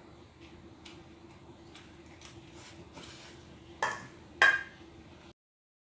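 Cutlery clinking against a dish while eating noodles: faint scrapes and ticks, then two sharp ringing clinks. A faint steady hum runs underneath, and the sound cuts off abruptly about five seconds in.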